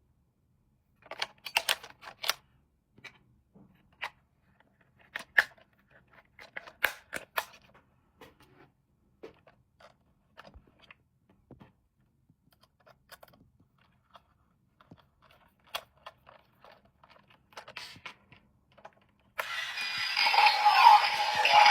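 Scattered clicks, taps and short crinkles of a plastic toy and its packaging being handled. Near the end a loud electronic sound with music-like content starts abruptly, likely the robot dog toy's built-in sound.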